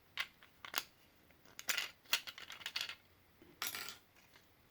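Small parts of a disassembled PS4 controller being handled, giving a string of about half a dozen light, irregular clicks and clinks.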